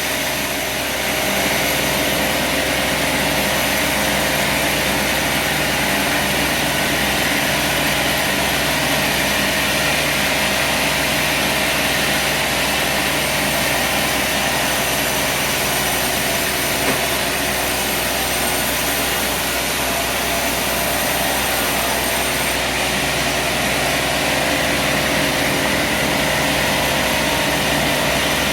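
Sawmill running steadily under power, sawing a poplar log.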